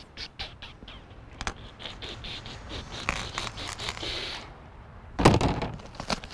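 Plastic strapping bands being dragged and pulled off a cardboard shipping box, with scattered clicks and scraping against the cardboard. About five seconds in comes a louder tearing burst as the packing tape on the box is split open by hand.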